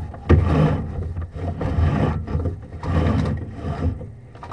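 Sewer inspection camera and its push cable being pulled back through an ABS sewer pipe, rubbing and scraping in repeated pulls about once a second.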